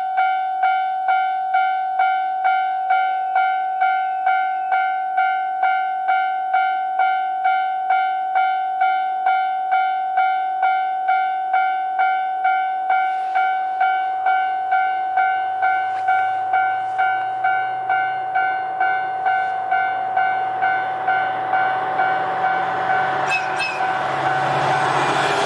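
Japanese level-crossing warning bell ringing in an even, repeating clang, just under two strikes a second. From about halfway a JR Freight DF200 diesel locomotive's engine rumble comes in, and the noise of the approaching freight train grows loud over the last few seconds.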